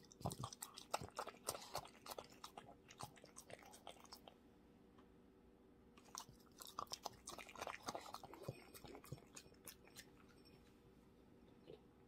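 French bulldog chewing bites of scrambled egg, with quick wet clicks of jaw and tongue in two bouts: the first few seconds, and again from about six and a half to nine seconds in.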